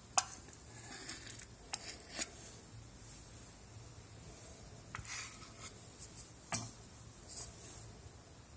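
Hand-handling of a plastic silicone-duplicating flask, its plaster model and the silicone mould: a few sharp clicks and knocks, the loudest just after the start and again about six and a half seconds in, with short scrapes and rubbing between.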